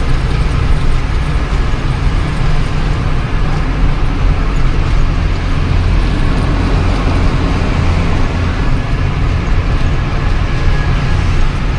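Ashok Leyland Ecomet 1214 truck's diesel engine running at a steady cruise with a low drone and tyre noise, heard from inside the cab while driving through a road tunnel.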